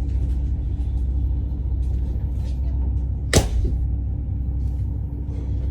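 Steady low machinery rumble with a hum, with one sharp, loud noise about three and a half seconds in.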